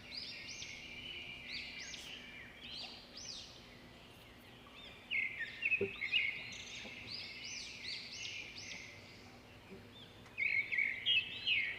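A chorus of many small birds chirping, short arching chirps overlapping one another, with louder bouts about five seconds in and again near the end.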